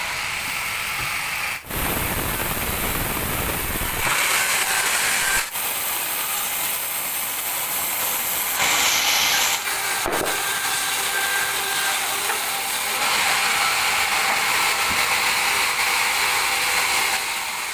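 Large band sawmill cutting a teak log: a steady, noisy sound of the blade running through the wood. It is broken by three short dips and changes a little from section to section.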